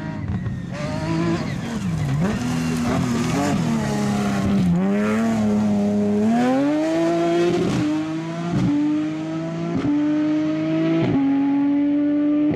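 Rivet Nissan rally buggy's engine coming off the throttle into a gravel corner, then accelerating away with several quick upshifts. Loose gravel hisses under the tyres through the corner.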